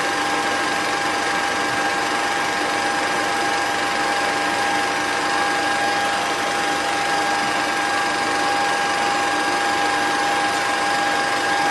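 A small motor running steadily, giving a constant high whine over a hiss that does not change in pitch or level.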